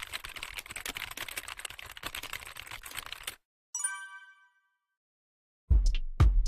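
TIG welding arc crackling for about three seconds, then cut off abruptly. A short chime rings and fades, and loud electronic music with a heavy beat starts near the end.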